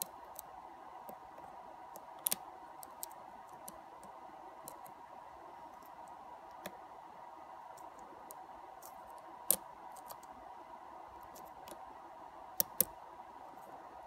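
Lock pick and tension wrench working inside a euro-profile pin-tumbler cylinder, giving faint scattered metallic clicks and taps as single pins are lifted and set. A few sharper clicks come about two seconds in, near ten seconds, and twice in quick succession near the end.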